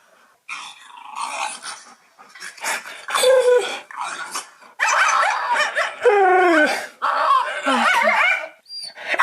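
Dog vocalizing in several bouts of wavering, gliding growl-whines and moans. A sharp click comes right at the end.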